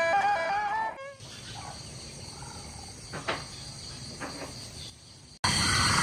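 A wind-instrument music passage ends about a second in, giving way to wetland field ambience: a steady high insect buzz with a few faint bird calls. Near the end it cuts abruptly to louder field sound of insects and birds.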